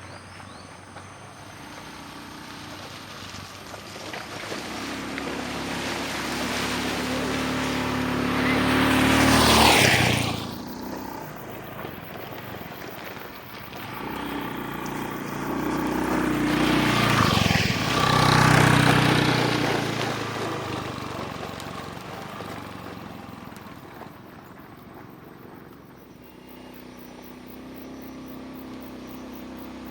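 Motorcycle ride on a road: an engine runs steadily under road noise while two vehicles pass close by, about a third of the way in and again just past halfway, each swelling and dropping in pitch as it goes by.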